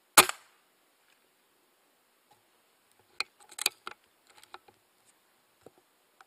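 Air rifle shot: one sharp crack with a short tail just after the start. About three seconds later comes a scattered run of light clicks and ticks, with a couple more near the end.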